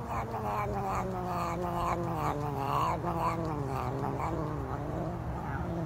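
Domestic cat caterwauling: one long, drawn-out yowl that wavers and slowly sinks in pitch before fading out near the end.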